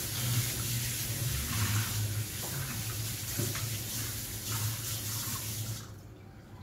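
Kitchen sink tap running with a steady hiss of water, shut off about six seconds in.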